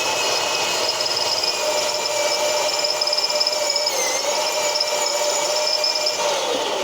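Power drill with a steel bit drilling into a hardened steel bolt, the motor whining steadily under load. The pitch dips briefly about four seconds in as the bit bites, and the drill winds down near the end.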